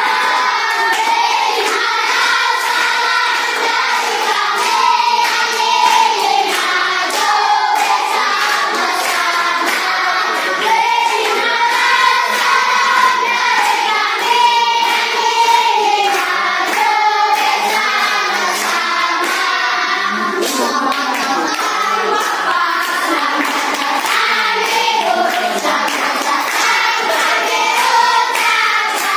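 A group of children singing together, keeping time with steady hand clapping.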